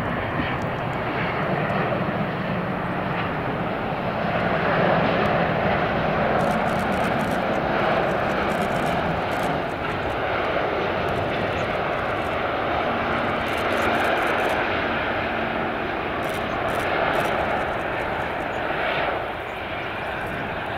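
Airbus A350-900 jetliner's Rolls-Royce Trent XWB turbofan engines, a loud, steady rushing jet noise as the aircraft runs along the runway during a touch-and-go. The level drops a little near the end.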